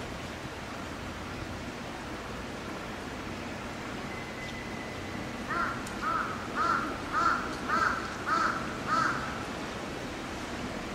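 A crow cawing seven times in a quick, even series, about two calls a second, over a steady hiss of rain.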